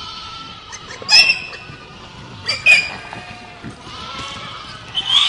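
Herd of goats bleating, with several voices overlapping. Short loud bleats come about a second in, a pair a little later, and another near the end, with fainter calls between them.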